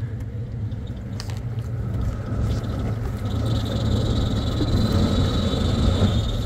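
Off-road vehicle's engine running under load in low-range four-wheel drive as it climbs a sandy trail, getting gradually louder, with a steady high whine joining in about halfway through.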